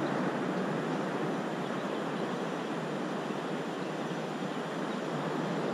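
Steady rush of sea surf and wind on the microphone, an even noise that holds one level throughout.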